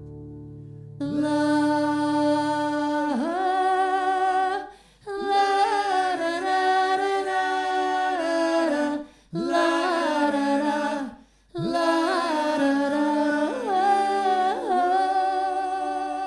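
A cappella vocal harmony with no instruments: a female lead and male backing voices singing held chords together, in four phrases broken by short breaths.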